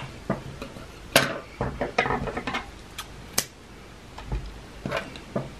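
Scattered light clicks and knocks of a crochet hook and hands against a wooden tabletop while yarn is handled, the sharpest knocks about a second in and again near three and a half seconds.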